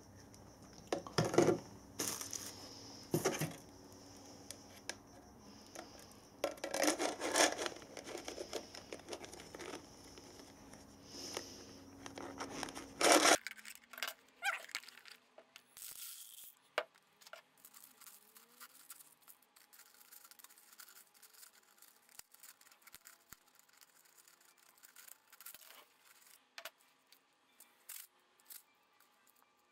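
Nerds candy and Nerds Rope being stuffed into a thin-walled clear PLA 3D-printed rocket: bursts of plastic scraping and crinkling as it is handled. About halfway through, the steady background noise cuts off suddenly, leaving sparse faint clicks of small candies ticking against the plastic.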